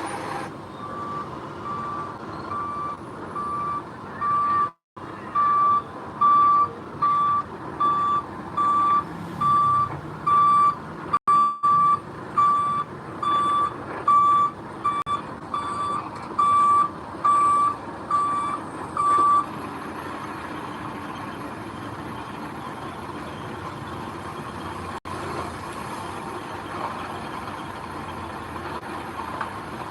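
Backup alarm of a heavy construction vehicle beeping steadily, about one beep a second, as it reverses, over its diesel engine running; the beeping stops about two-thirds of the way through and the engine carries on.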